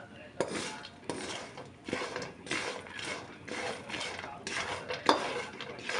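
Fried peanuts being stirred and scraped around a pan with a slotted spatula: a rattling, scraping stroke a little more often than once a second, with sharp clicks of nuts and utensil against the pan.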